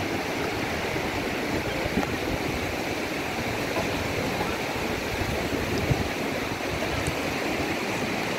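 Shallow river water rushing steadily over rocks and small rapids, with two brief soft knocks about two and six seconds in.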